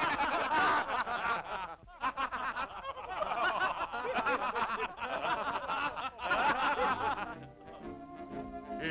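A chorus of cartoon voices chuckling and snickering over music. Near the end the laughter gives way to steady held notes of the music.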